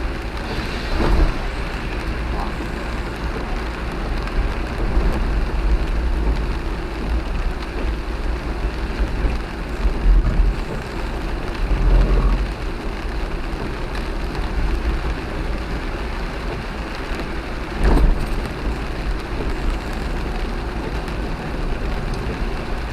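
Rain and road noise from a moving camper van: a steady hiss over a low rumble, with a few brief thumps, the loudest about 18 seconds in.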